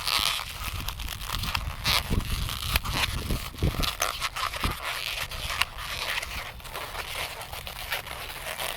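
Inflated latex modelling balloons squeaking and rubbing against each other in irregular strokes, with scattered sharp crackles, as a balloon is twisted and forced through another part of the balloon sculpture.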